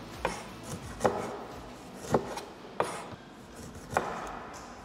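Chef's knife cutting limes on a wooden cutting board: five sharp knocks of the blade striking the board, about one a second.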